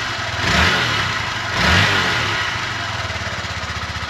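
2019 Honda Grom's 125 cc single-cylinder engine, through the stock exhaust, running cold just after a cold start. The throttle is blipped twice, about half a second and just under two seconds in, revving up and falling back. It then settles to a steady idle.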